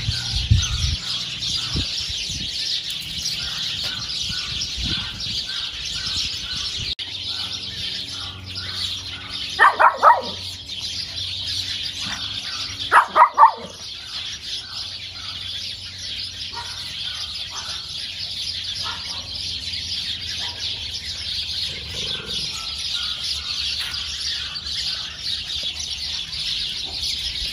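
Steady chorus of many birds chirping, with a small dog barking twice in quick runs of three sharp yaps, about ten and thirteen seconds in.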